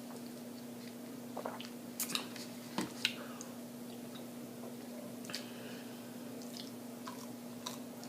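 A person chewing and biting food close to the microphone, with scattered wet mouth smacks and clicks. A steady low hum runs underneath.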